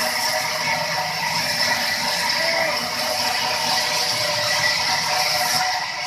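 Large sawmill band saw running and cutting through timber: steady machine noise with a high hiss from the cut that stops shortly before the end.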